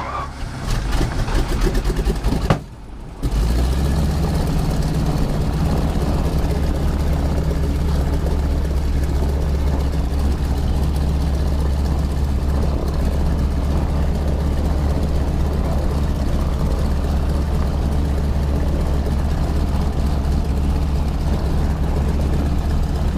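T-6 Texan's Pratt & Whitney R-1340 nine-cylinder radial engine starting. There are a couple of seconds of uneven cranking and firing and a brief lull, then about three seconds in it settles into a loud, steady idle.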